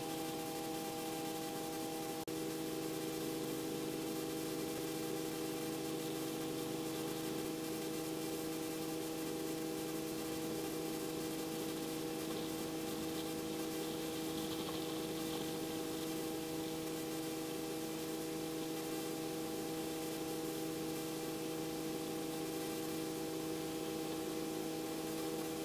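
Steady electrical hum with several fixed tones over a constant hiss, as carried on a Robinson R44 helicopter's intercom audio feed between radio and intercom speech.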